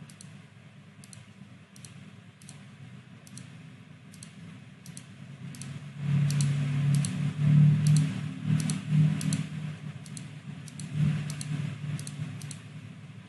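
Light clicking from a computer mouse, about two clicks a second. About six seconds in, a louder low hum joins and fades again near the end.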